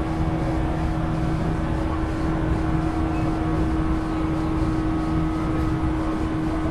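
JR West 475 series electric train running at steady speed, heard inside the motor car: the MT54 traction motors and gearing give a steady whine over the rumble of the wheels on the rails.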